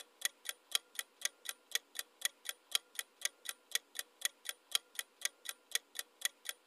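Clock-ticking sound effect for a quiz countdown timer: short, even ticks about four a second, marking the seconds left to answer.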